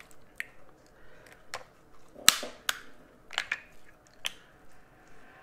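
Snow crab leg and shrimp shells cracking and snapping as they are broken open by hand: about seven sharp cracks, the loudest a little over two seconds in.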